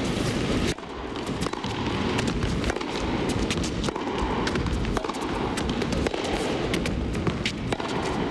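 Indoor arena crowd applauding, many irregular hand claps over a low crowd rumble.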